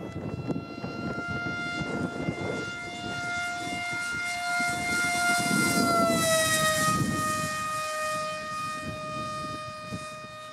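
Electric motor and propeller of a Depron F-16 parkjet RC plane whining in flight, a steady pitch that drops smoothly about six seconds in as the plane passes overhead, then holds lower. The motor is noisy for a plane that doesn't go particularly fast.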